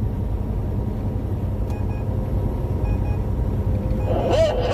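Steady low rumble of a truck's engine and road noise inside the cab, with a few faint short beeps in quick pairs about two and three seconds in.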